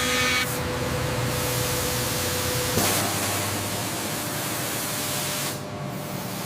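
Steady loud hissing noise, like gas or air rushing, with an abrupt change about three seconds in.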